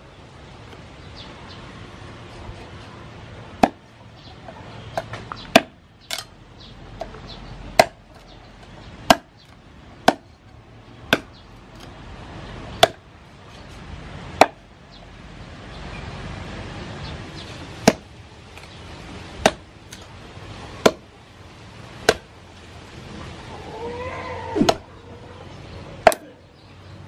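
Meat cleaver chopping a raw pork leg into pieces on a round wooden chopping block: single sharp chops, about one every second or two, at an uneven pace.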